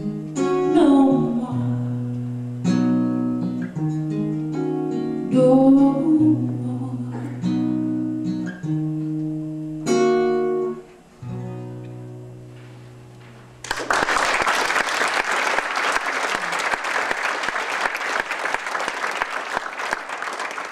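Acoustic guitar strummed in slow held chords with a woman singing, the last chord ringing out and fading as the song ends. About two-thirds of the way through, an audience bursts into applause.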